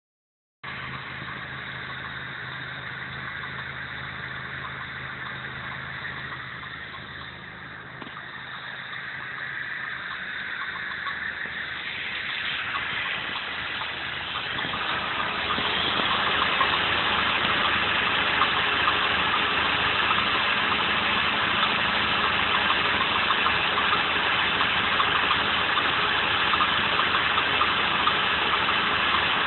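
Honda K24 2.4-litre four-cylinder engine running with a weird squealing noise over it. The sound gets louder from about eight seconds in and then holds steady from about sixteen seconds on.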